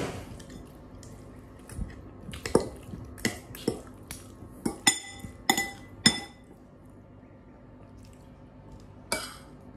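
Metal cutlery clinking and scraping against a ceramic bowl. A quick, uneven run of clicks and ringing clinks lasts a few seconds, then one short scrape comes near the end.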